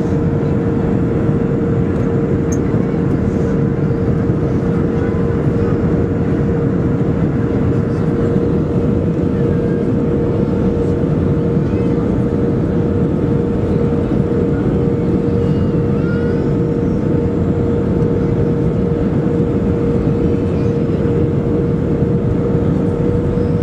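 Economy-cabin noise of a Boeing 737-400 on final approach with flaps extended: a steady dense rush of airflow and engine noise, with a constant humming tone running through it.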